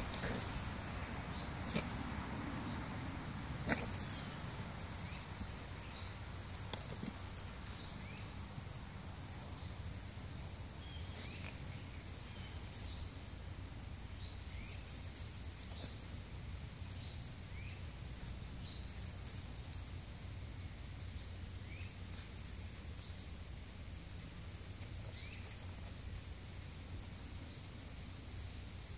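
Steady, high-pitched insect chorus, with a short rising chirp repeating every second or two. A few sharp clicks stand out in the first seven seconds.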